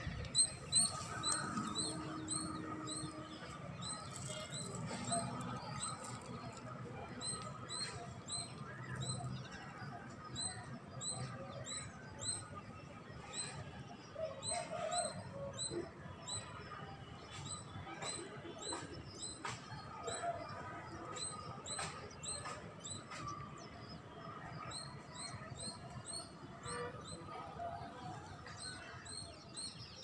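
A small animal chirping over and over outdoors: short, high chirps about two a second, in runs broken by brief pauses, with a few light knocks.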